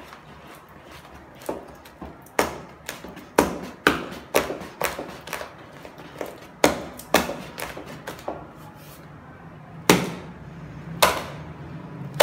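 Wooden stirring stick knocking against the sides of a plastic bucket as thick pukis batter is beaten by hand: a run of irregular sharp knocks, often about two a second, then two more single knocks near the end.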